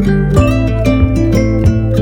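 Instrumental music: quick plucked guitar-like notes over held bass notes.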